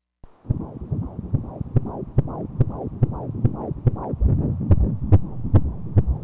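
Pulsed-wave Doppler ultrasound signal of a fetal heartbeat at about 16 weeks' gestation. It is a rhythmic whooshing pulse, about two and a half beats a second, each beat a falling swish with a sharp click, and it starts a moment in.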